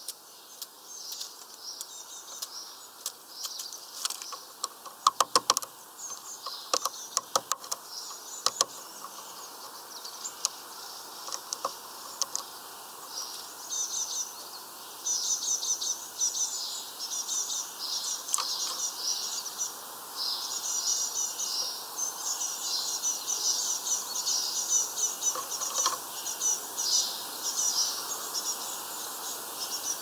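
Small songbirds chirping and twittering in quick high trills, sparse at first and denser and louder through the second half. A run of sharp clicks and taps comes about five to nine seconds in.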